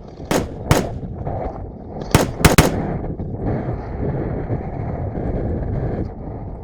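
Airsoft rifle firing five sharp semi-automatic shots close by: two about a second in, then a quick group of three a little past two seconds. A steady rushing noise follows for about three seconds.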